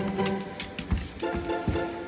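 Instrumental background music with repeated note phrases, and two deep thumps, about a second in and near the end.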